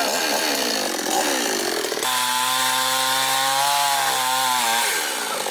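Two-stroke chainsaw running, its engine note rising and falling, then holding a steadier pitch for about three seconds from around two seconds in before wavering again. The saw is a rented one that has just been fixed and is back at work cutting wood.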